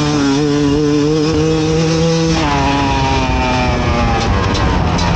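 Fantic XE 300 two-stroke enduro motorcycle under way. The engine holds steady revs, then changes about halfway through and slowly drops in pitch.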